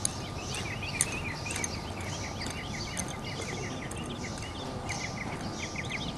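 Outdoor summer ambience: birds chirping in quick, repeated notes and insects buzzing in steady pulses, over a low rumble of background noise. There are two sharp clicks in the first second.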